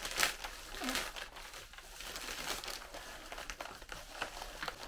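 Plastic bubble mailer crinkling and rustling as it is slit open with a knife and a boxed kit is slid out of it, with a sharp crackle near the start.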